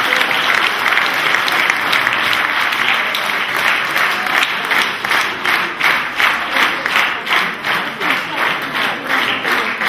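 A hall audience applauding, the scattered clapping settling about halfway through into rhythmic clapping in unison, about three claps a second.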